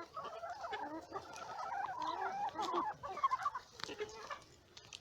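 Laying hens clucking in a busy, overlapping chatter as they squabble over bread scraps, thinning out near the end.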